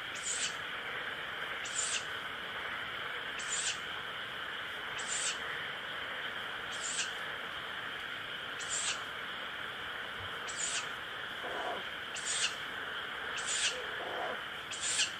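Owl chick giving short, hissing "pishu" calls, repeated about every one and a half to two seconds.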